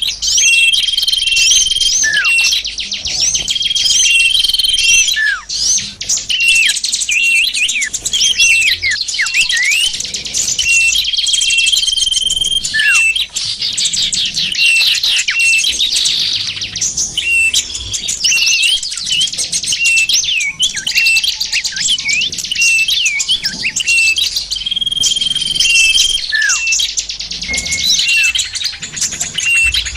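Bird-lure recording for small wild birds: a dense, continuous mix of high chirps, twitters and quick downward-sweeping calls, with a held whistled note that recurs now and then.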